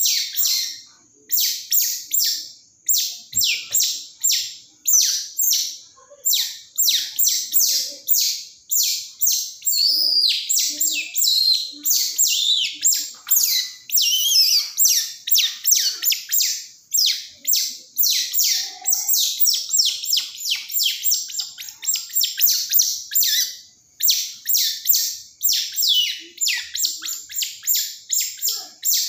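Baby otter crying: rapid, high-pitched chirping squeaks, about three a second, with a couple of brief pauses. It is a hungry pup's tantrum.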